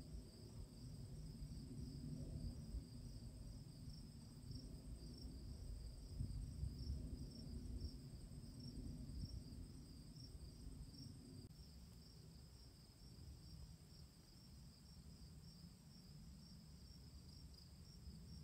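Insect chorus, like crickets: a steady, high, pulsing trill. Underneath is an uneven low rumble that eases off about two-thirds of the way through.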